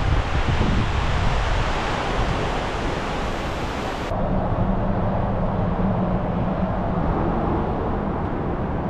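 Steady loud outdoor rushing noise. About four seconds in it changes abruptly to a duller rush with a low steady hum underneath.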